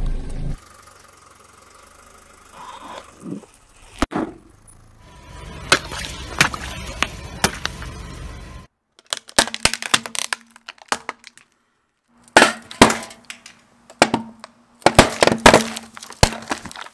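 A car tyre rolling over and crushing brittle objects and drink cans: clusters of sharp cracks, snaps and crunches with short silent gaps between them, with aluminium cans being crushed near the end.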